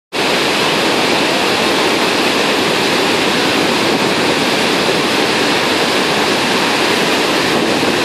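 Iguazu Falls: a loud, steady roar of water pouring down close by.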